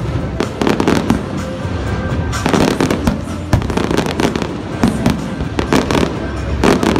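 Fireworks display: aerial shells bursting in a dense, continuous barrage of overlapping bangs and crackles.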